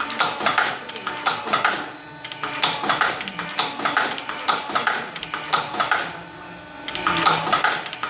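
Cord-tipping machine running: a steady whine under fast, repeated mechanical clacks that come in runs, with short lulls about two seconds in and again past six seconds.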